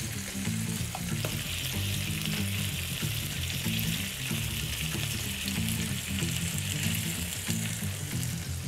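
Lamb cutlets frying in olive oil in a hot grill pan: a steady sizzle that grows stronger about a second in.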